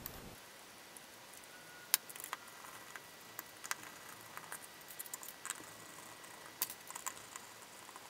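Faint, scattered small clicks and taps from a screwdriver working T8 Torx screws out of a plastic external hard drive enclosure.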